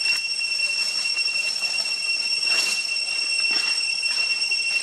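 A chorus of cicadas gives a steady, high-pitched whine that never lets up. Brief rustles of dry leaf litter come about halfway through.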